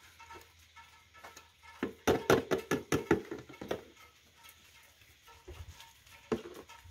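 Engine oil glugging out of a plastic quart bottle into the oil filler: a quick run of gurgles for about two seconds. A single knock comes near the end.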